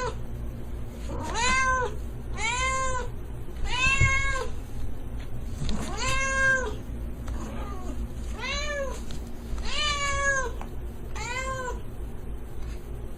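A cat meowing over and over, about eight or nine meows one to two seconds apart, each rising and then falling in pitch, over a steady low hum.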